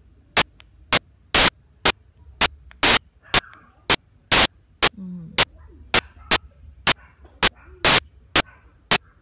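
Sharp clicks, evenly spaced about twice a second, over a low steady hum, with a faint voice murmuring briefly twice.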